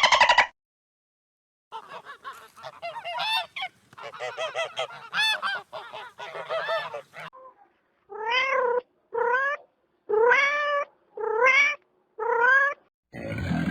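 Animal calls. About five seconds of many short, quick calls, then after a short pause five separate drawn-out calls that each rise and fall in pitch.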